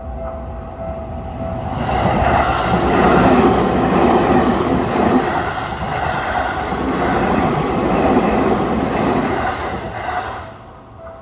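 Seibu 20000 series electric train passing over a level crossing. Its running noise swells about two seconds in, stays loud for some eight seconds and fades near the end. The crossing's warning bell rings steadily before the train arrives and is heard again as the train noise dies away.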